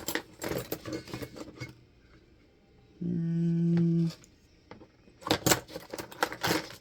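Small metal lockpicking tools clicking and clattering as they are picked up and set down, in two bursts of sharp clicks. A short steady hum comes between them, about halfway through.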